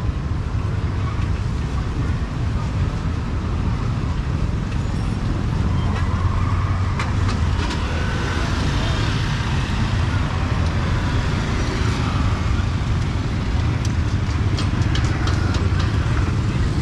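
Busy street ambience: motorbike and tuk-tuk traffic running, with a steady low rumble, faint scattered voices and a few light ticks.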